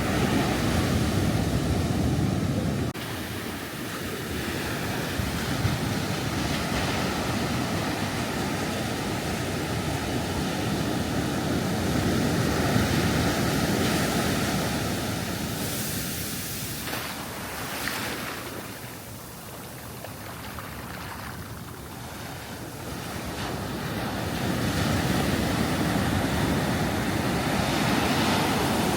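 Ocean surf breaking and washing on a beach, a steady rush that swells and ebbs. It drops suddenly about three seconds in, fades lowest past the middle, then builds again near the end.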